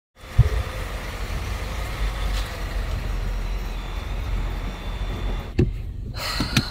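A car running in a car park, a steady low rumble with outdoor noise over it and a thump just after it starts. About five and a half seconds in it gives way to the quieter inside of the car, with a few sharp knocks.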